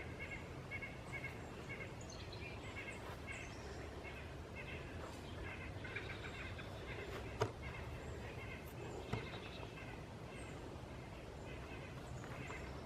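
Footsteps of a hiker walking through woodland undergrowth and leaf litter, with two sharp snaps about seven and nine seconds in. A rhythmic high chirping repeats underneath.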